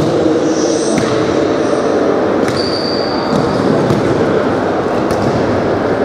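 Futsal ball being kicked and bouncing on a sports-hall floor: a few sharp knocks over the steady, echoing din of the hall, with a brief high squeak about two and a half seconds in.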